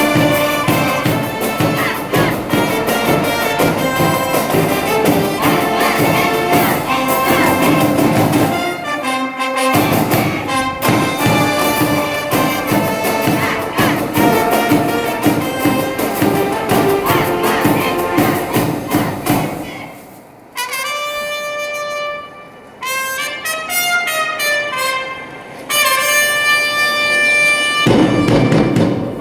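School brass band playing a baseball cheering tune, with trumpets and trombones to the fore. The full band plays with a brief break about a third of the way in. Near the two-thirds mark it thins to a few instruments holding and sliding clear notes, and the full band comes back in just before the end.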